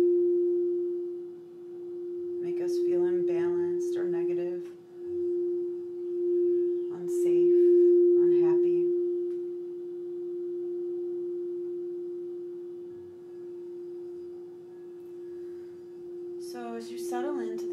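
Quartz crystal singing bowl sung with a mallet circled around its rim: one steady, pure tone that swells and fades in loudness. A voice comes in briefly a few times over it.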